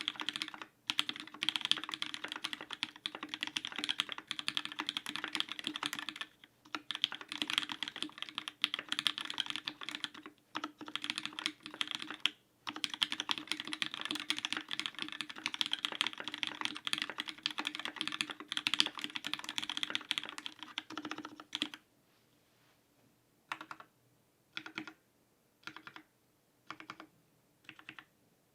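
Mechanical keyboard with lubed vintage Cherry MX Black linear switches, a stainless steel plate and GMK keycaps, typed on quickly, with short pauses. After about 22 seconds the typing gives way to separate single keystrokes about once a second.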